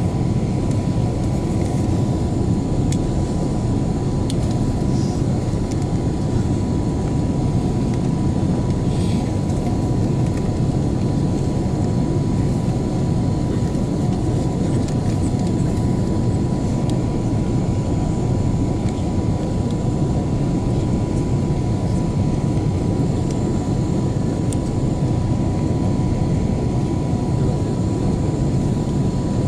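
Steady cabin noise of an Airbus A330-200 airliner on approach, heard from a window seat by the wing: a constant low rush of engines and airflow with a thin, steady high tone running through it.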